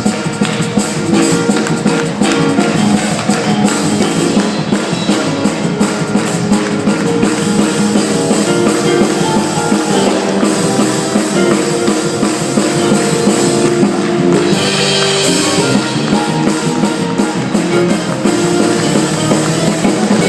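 Instrumental introduction of a gospel song played by a band, with drum kit and guitar keeping a steady beat and no voices yet.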